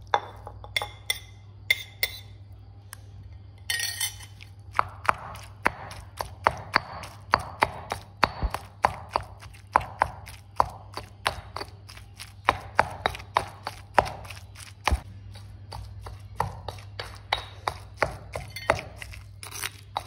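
Granite pestle pounding raw meat into a garlic and shallot paste in a granite mortar. A few spaced strokes come first, then a steady run of about two strokes a second, with a short pause about three quarters of the way through.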